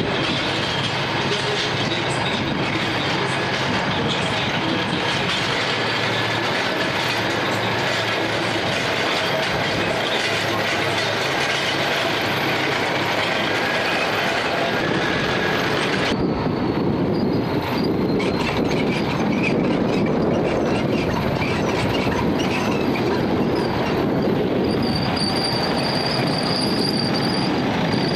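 T-90S tanks and other tracked armoured vehicles driving past: a steady clatter of steel tracks over running engines. The sound changes abruptly about 16 seconds in, and a high steady whine joins near the end.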